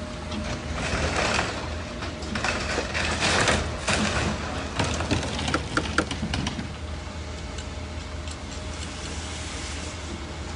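Caterpillar long-reach demolition excavator tearing into a wooden building: its diesel engine hums steadily underneath while timber cracks and splinters and debris crashes down, loudest in the first few seconds, with sharp snaps in the middle.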